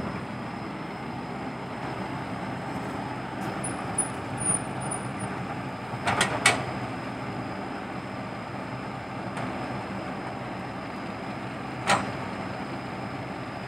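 Komatsu PC120-5 hydraulic excavator's diesel engine running steadily under work as the boom and bucket move. A quick cluster of sharp metallic knocks comes about six seconds in, and a single knock near the end.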